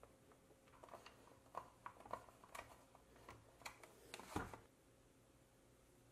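Faint, scattered clicks and knocks of hands handling plastic cooler parts on a workbench, the loudest knock a little past four seconds in.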